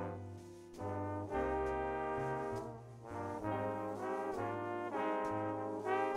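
Four trombones playing held chords in close harmony that change every second or so, over a double bass line.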